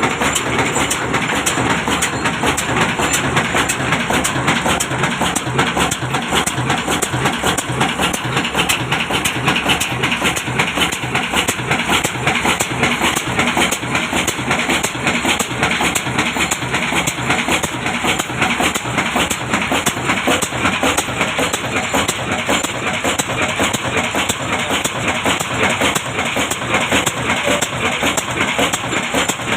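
Old diesel engine running steadily under load, driving a stone flour mill, with a fast, even beat from its firing.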